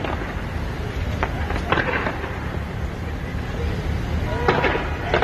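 Continuous rumble of a large fireworks display, with booms running into one another and a few sharp cracks: about a second in, just before the two-second mark and near the end.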